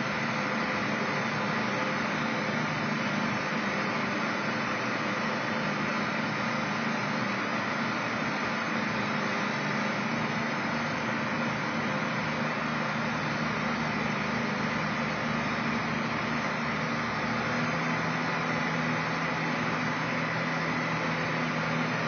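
Case IH 7120 combine running steadily as its corn head feeds corn stalks: a continuous engine and machinery hum with steady low tones. One low tone grows a little stronger about three-quarters of the way through.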